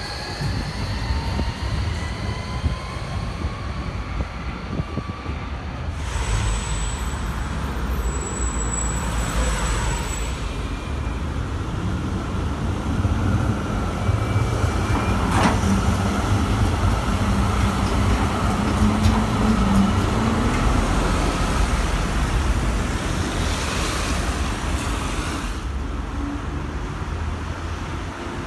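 Electric street trams running past on their rails amid road traffic: a steady rumble with motor whines, one of them gliding in pitch near the start.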